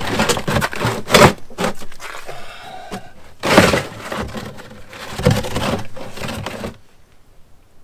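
A plastic drain pan scraping and knocking as it is dragged and set down on the ground. The loudest knocks come about a second in and again about three and a half seconds in.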